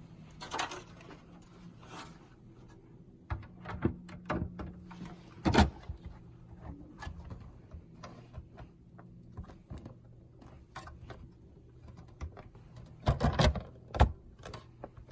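Clicks and knocks of plastic and metal parts being handled while a POS terminal is taken apart to replace its motherboard. The knocks are scattered, with a loud one about five and a half seconds in and a quick cluster near the end.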